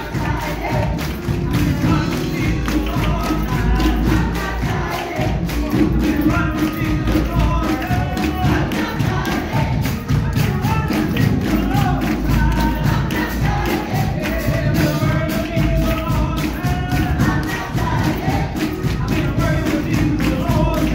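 Church choir singing a gospel-style hymn over strong bass accompaniment and a steady percussive beat.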